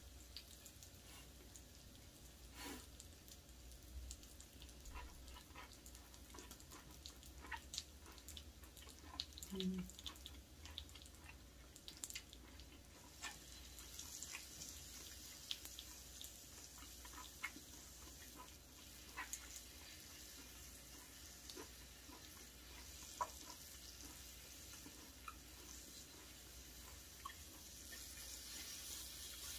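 Quiet eating sounds: chewing grilled beef brisket and aged kimchi, with wooden chopsticks clicking and tapping against the bowl and cast-iron griddle in scattered short ticks. A faint sizzling hiss from the griddle grows near the end.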